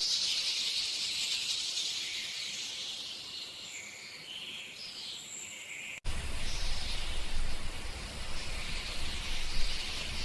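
Outdoor ambient noise: a high hiss that slowly fades, then an abrupt cut about six seconds in to a fuller, rougher noise with a low rumble.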